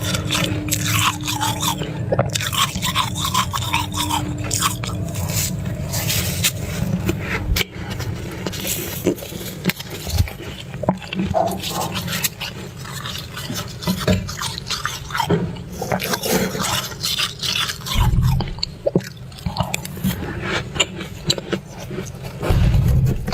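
Fluffy freezer frost ice being scraped and crunched: a dense run of crackly scratches and crunches over a steady low rumble, with two heavier low thumps near the end.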